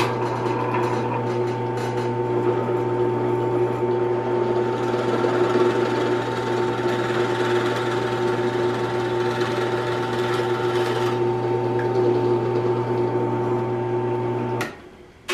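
Ryobi 10-inch benchtop drill press switched on with a click, its motor running with a steady hum while a twist bit is fed down into a wooden board. It is switched off with a click near the end and the hum dies away.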